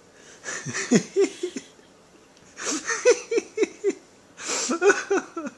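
A person laughing in three bouts, each starting with a breathy rush of air and breaking into a quick run of short 'ha' pulses.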